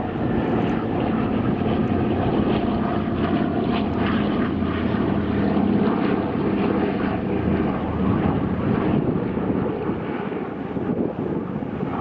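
Two Douglas C-47 Dakotas flying past in formation, their twin Pratt & Whitney R-1830 radial piston engines giving a steady propeller drone that eases slightly near the end.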